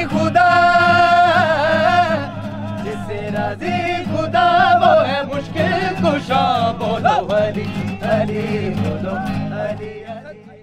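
Background music with a singing voice: a melody of long, wavering held notes over a steady low accompaniment, fading out near the end.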